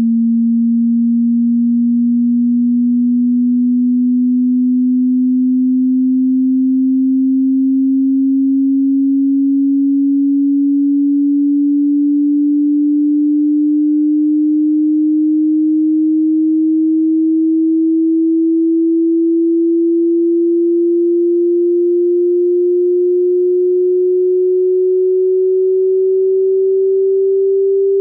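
Hearing-test sine tone: a single low, pure tone at steady loudness, sweeping slowly and evenly upward in pitch.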